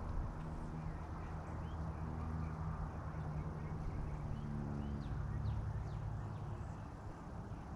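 Outdoor ambience: a steady low hum like distant traffic, with short faint bird chirps scattered throughout.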